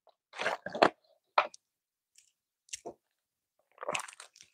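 A few short gulps and plastic crackles from drinking out of a plastic water bottle, then a brief crinkling of a Violet Crumble chocolate bar wrapper being handled near the end.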